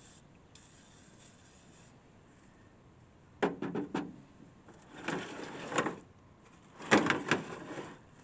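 Three short bursts of spraying, about a second and a half apart, as acid coil cleaner is sprayed onto the dirty coil of a window air conditioner.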